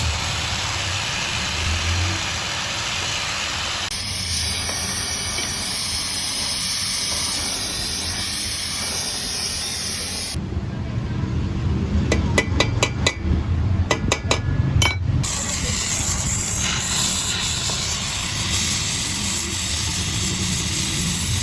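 A steady hissing noise runs through several edited segments. From about two to five seconds past the middle comes a quick run of sharp metallic taps and clinks that ring briefly.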